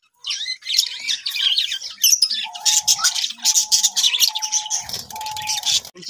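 A colony of lovebirds and budgies chirping and chattering with rapid high calls. In the second half a steady mid-pitched tone sounds four times, each about half a second to a second long.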